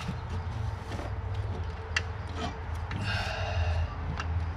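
Hand work on a car engine: a few sharp clicks of tools or parts and a brief scrape, over a steady low hum.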